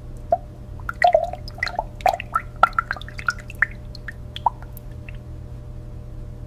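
Oil dripping and plopping as it pours into a small pool, a quick run of drips that thins out and stops about five seconds in. A steady low hum runs underneath.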